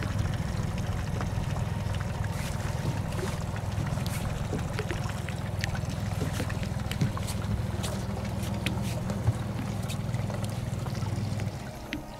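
A steady low rumble that cuts off suddenly near the end, with a few sharp knocks of gear being moved about in a small aluminum fishing boat.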